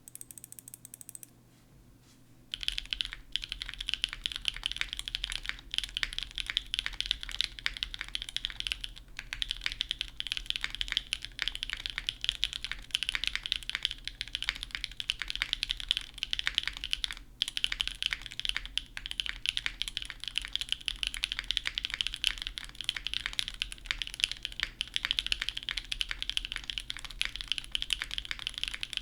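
Steady typing on a mechanical keyboard with stock, factory-lubed Gateron CM long-pole switches in an aluminum leafspring plate, under GMK keycaps: a dense run of clacky keystrokes. The typing begins about two and a half seconds in.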